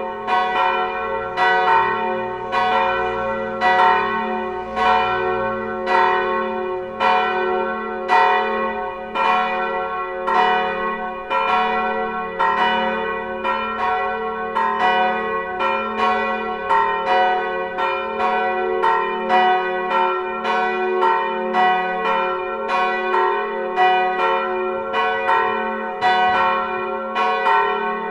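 Swinging church bells, including bells tuned to F-sharp and A-sharp, ringing together in a full peal: overlapping strikes about twice a second over a steady ringing hum.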